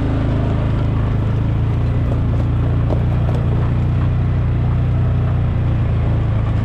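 ATV (four-wheeler) engine running steadily at a constant, even note.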